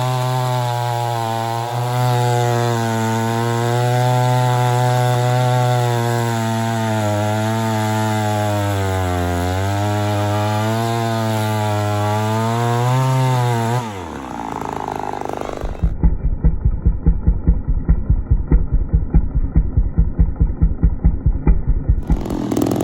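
Ported Poulan 245A two-stroke chainsaw with a 28-inch bar running under load in a hardwood cut, its pitch wavering slowly as it works through the wood. About fourteen seconds in the engine note drops sharply away, and a low pulsing about four times a second follows.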